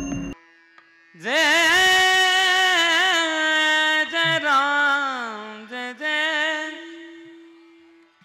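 A singer's long, sustained devotional vocal line over a steady held drone note, wavering and ornamented, gliding down and fading near the end. A burst of intro music cuts off at the very start.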